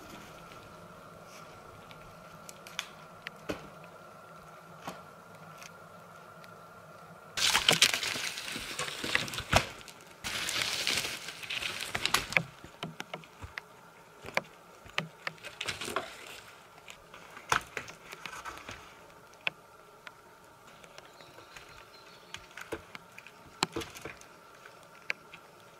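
A long wooden pole dragged and scraped through forest-floor brush and twigs, loudest for about five seconds in the middle, then footsteps, snapping twigs and knocks on dry wood as it is handled and set against a tree. A faint steady high hum runs underneath.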